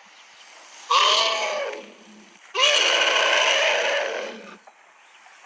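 African elephant trumpeting twice, a short call about a second in and a longer one soon after.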